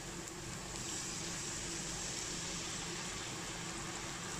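Steady hiss of onions and garlic frying in oil in a kadai as tamarind water is poured in, the hiss brightening about a second in, with a faint steady hum underneath.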